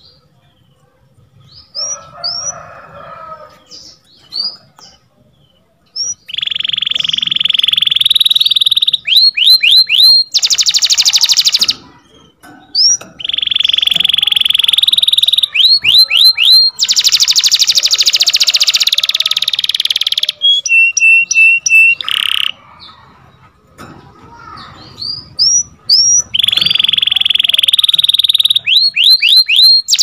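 Domestic canary singing: long rolling trills, quick runs of rising whistled notes and harsh buzzy passages, with only a few short chirps before the song starts about six seconds in.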